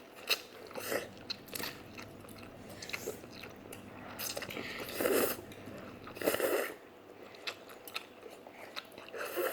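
Close-up chewing of Buldak spicy instant noodles, with wet mouth clicks and two longer noisy sounds about five and six and a half seconds in.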